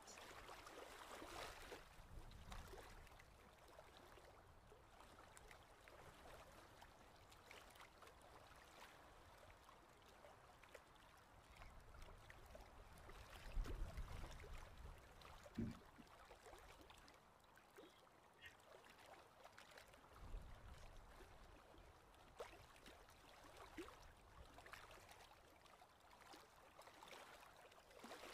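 Near silence: faint background hiss, with a few soft low thumps and faint clicks.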